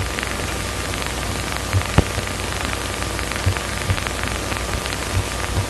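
Steady hiss with a low hum and scattered crackles and pops: the background noise of a worn early-1930s sound-film soundtrack.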